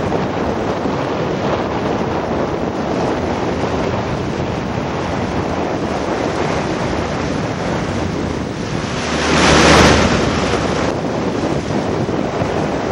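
Steady rush of wind on the microphone over moving water, swelling to a louder gust about nine and a half seconds in.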